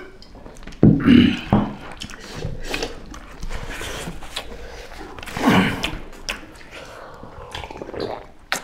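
Two people eating rice with their hands: chewing and mouth sounds, with a few short loud vocal sounds about a second in and again past the middle, and a sharp click near the end.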